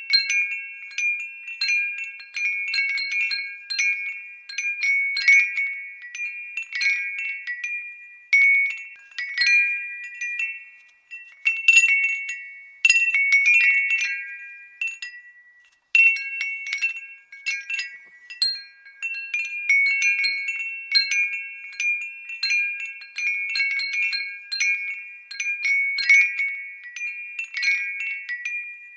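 Glass wind bell ringing: irregular light strikes, each leaving a few high, clear tones ringing on, with a brief lull about fifteen seconds in.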